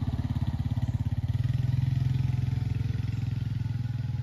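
An engine running steadily, a low drone with a fast, even throb.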